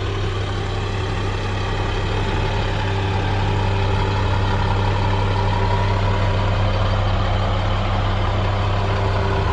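A vehicle engine idling: a steady low drone that holds one pitch throughout and grows a little louder over the first few seconds.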